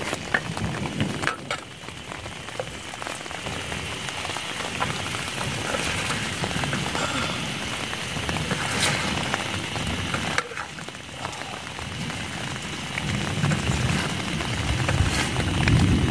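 Steady heavy rain falling, with a few sharp clicks of a metal ladle against a steel pan.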